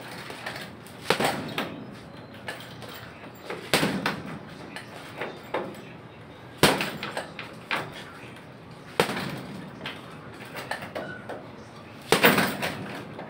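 Boxing gloves striking a hanging heavy punching bag in short combinations of two or three punches, a burst every couple of seconds. The hardest flurry comes near the end.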